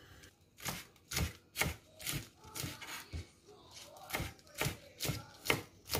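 Chef's knife chopping Swiss chard (silq) leaves on a plastic cutting board: a steady run of knocks, about two a second, with a short pause midway.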